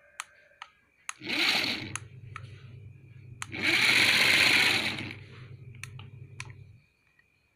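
Small brushed DC motors of a homemade RC car running, with a steady low hum and two louder bursts of whirring as the drive motor spins the wheels through plastic gears, about a second in and in the middle; it stops shortly before the end, with scattered light clicks. The car responds only in fits, which the builder puts down to a poor receiver antenna.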